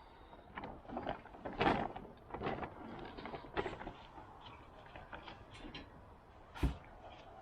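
Handling noises of hands-on work: scattered knocks, scrapes and rustles, with one louder thump near the end.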